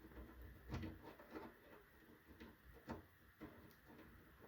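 Faint, scattered clicks and light knocks from screws and a plastic case fan being handled against a PC case, as the fan screws are tried by hand without biting.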